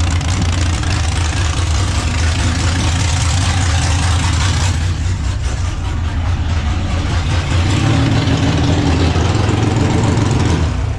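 Mini rod pulling tractor's engine running loud and steady, picking up a little about two-thirds of the way through.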